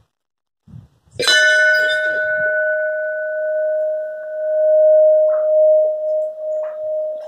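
Hanging brass temple bell struck once by hand about a second in, then ringing on in a long fading tone with a slow wavering swell, its higher overtones dying away after a few seconds.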